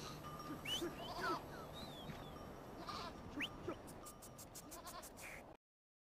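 Sheep and goats bleating, fairly faint, with short high chirps among the calls; the sound cuts off suddenly about five and a half seconds in.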